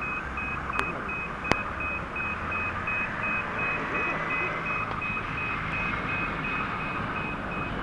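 Japanese railway level-crossing warning bell ringing in a steady, even rhythm of about two strikes a second, over a low rumble, with two sharp clicks about a second in.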